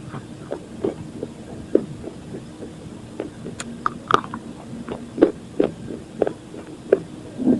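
Crunching and chewing slate pencils coated in sun-dried multani mitti (fuller's earth) paste: a run of sharp, irregular crunches a fraction of a second apart, over a steady low hum.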